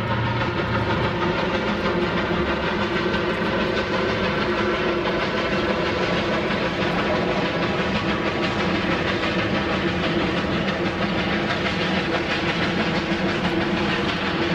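Spokane, Portland & Seattle 700, a 4-8-4 steam locomotive, working a passenger train: a steady running sound of exhaust and train noise, even in level throughout.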